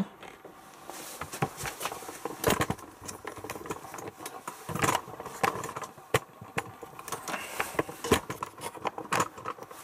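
Irregular clicks, knocks and rattles from the controls of a Hotpoint Futura washing machine being handled as it is switched on.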